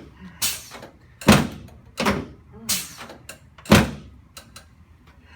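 Chiropractic adjustment of a patient lying face down on a treatment table: five loud, sharp thuds in about four seconds, then a few faint clicks.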